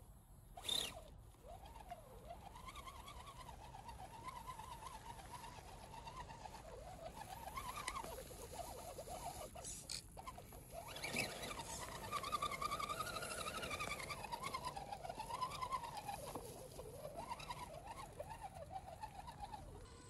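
Electric motors and gear trains of RC scale crawler trucks whining as they crawl over rough ground. The pitch rises and falls with the throttle. There is a sharp click just under a second in.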